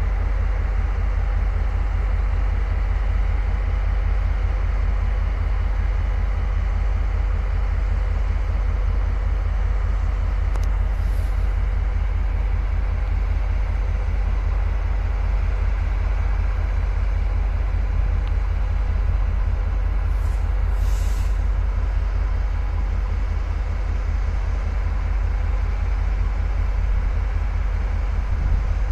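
Diesel locomotive idling with a steady low rumble, with two short hisses of air released from its brakes, about 11 seconds in and again around 20 seconds.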